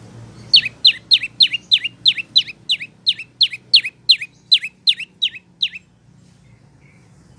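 Olive-backed tailorbird (prenjak lumut) calling a fast series of about seventeen sharp notes, each dropping steeply in pitch, about three a second, stopping about six seconds in.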